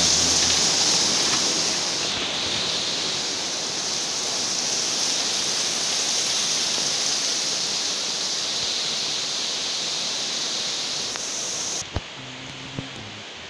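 A steady hiss, strongest in the high range, that cuts off suddenly with a click near the end, leaving a faint low hum.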